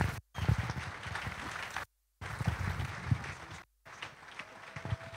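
Audience applauding, a dense run of hand claps, broken three times by brief dropouts to silence.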